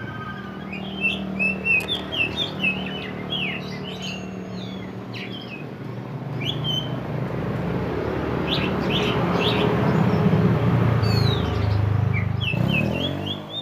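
Oriental magpie-robin singing loudly, a rapid run of varied whistles, chirps and slurred notes, thickest in the first few seconds and again near the end. Under it a low hum grows louder through the second half and rises in pitch near the end.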